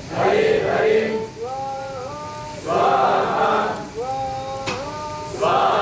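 Call-and-response chanting of fire-sacrifice (yagya) mantras. A group of voices chants together in short bursts three times, and a single male voice answers twice in between with a held, stepping melodic phrase, the exchange repeating about every two and a half seconds.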